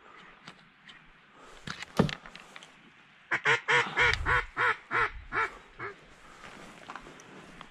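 A duck quacking about eight times in quick succession, the quacks getting quieter toward the end. A single sharp knock comes about two seconds in, with scattered light clicks and rustles around it.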